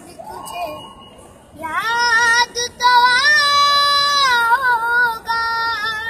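A young boy singing unaccompanied. After a short pause for breath he holds a long, high phrase, with wavering ornamental turns on the sustained notes.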